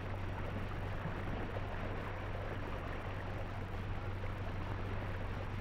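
Steady hiss with a constant low hum from an old film soundtrack, with no other distinct sound.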